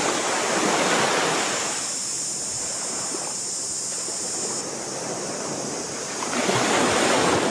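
Small waves washing onto a sandy beach, the surf swelling about a second in and again near the end, with a steady high hiss that stops a little past halfway.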